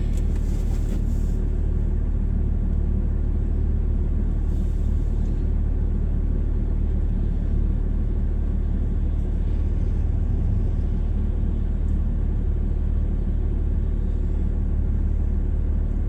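A moving vehicle's steady low engine and road rumble while driving, even throughout with no distinct events.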